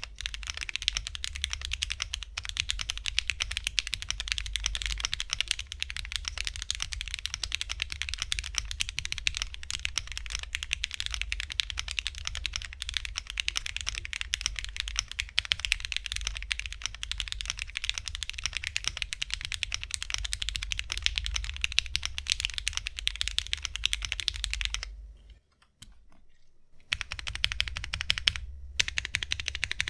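Fast typing on a Ginkgo65 aluminium mechanical keyboard with lubed Gateron CJ linear switches and thick PBT keycaps: a clacky, very clean, slightly thin sound. The typing stops for about a second and a half near the end, then starts again.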